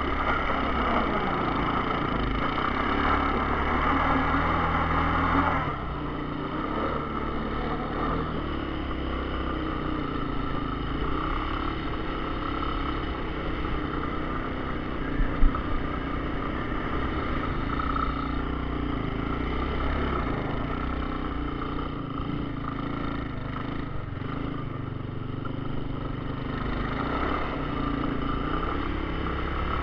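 1982 Honda Big Red 200E three-wheeler's air-cooled single-cylinder four-stroke engine running as it rides on snow, louder for the first five or so seconds, then dropping to a lower, steadier level. A single short sharp knock about halfway through.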